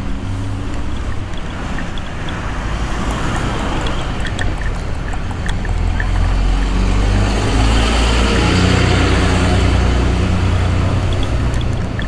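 Riding an electric kick scooter: steady wind buffeting on the microphone over the rumble of the small wheels on the pavement, with a few small clicks and rattles. It grows louder in the second half.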